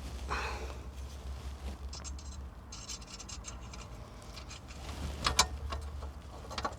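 Hand tools working on a diesel heater's glow plug: light metal clicks, rattles and scraping. A few sharper clicks come about five seconds in, over a low steady hum.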